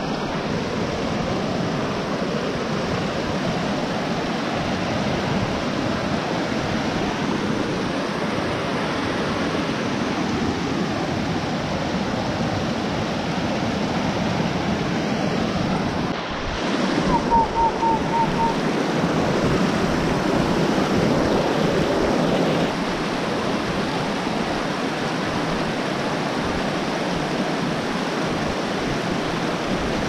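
Snowmelt mountain creek rushing and splashing over rocks in a steady watery rush, louder for a few seconds just past the middle.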